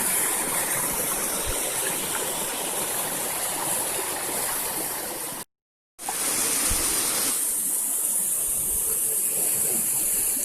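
Waterfall water rushing and splashing in a steady roar, cut off by a brief silent gap about halfway through before it carries on.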